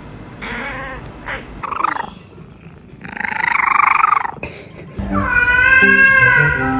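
A domestic cat making short, wavering meows and then a longer, rougher cry. Music with a steady bass line comes in about five seconds in and is the loudest sound.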